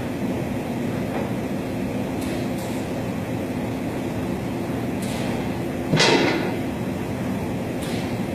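CNC router running with a steady mechanical hum, broken by a few sharp knocks, the loudest about six seconds in.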